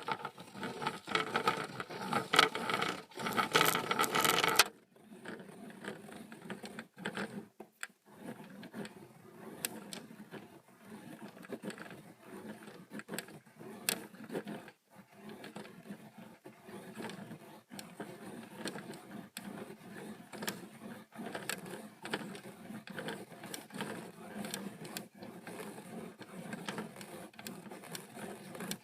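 Rapid, irregular run of clicks and scratches, loudest for the first four or five seconds, then dropping abruptly and going on more softly.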